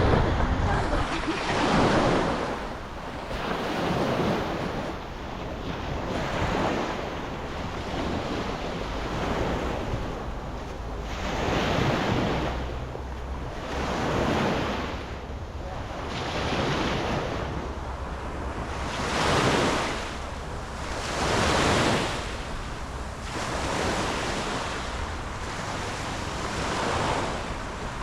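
Waves washing in and receding in a steady rhythm, one swell about every two and a half seconds, with wind buffeting the microphone.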